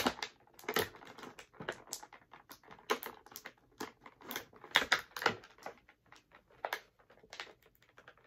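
Plastic blister packaging and small plastic accessories being handled: irregular clicks, taps and crinkles as the action figure's spare hands are worked out of the tray.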